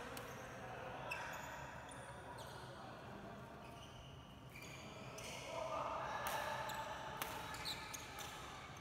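Sports shoes squeaking now and then on a synthetic badminton court mat, as players shuffle and walk between rallies, with voices talking in the hall.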